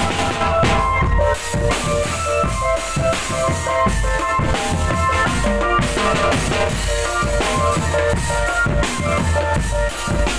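Drum band music: fast, dense drum beats with bass drum and snare, under a melody of held notes.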